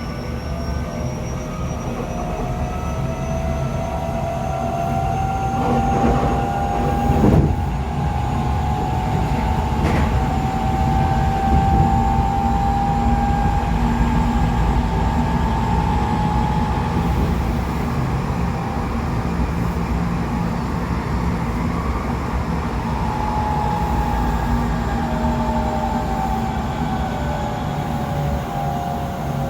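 Tokyo Metro 8000 series motor car running at speed: the traction motor and gear whine climbs in pitch over the first several seconds, holds, then falls in the last few seconds. The whine is split into close, discordant tones, which the uploader thinks come from only one axle of the bogie having had its wheels re-profiled. Underneath is a steady rumble of wheels on rail, with brief knocks about seven and ten seconds in.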